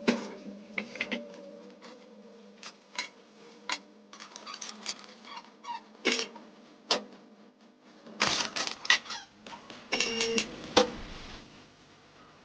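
Metal tools clicking and clinking in a series of sharp knocks, thickest in clusters about eight seconds in and again around ten seconds, over a faint steady hum.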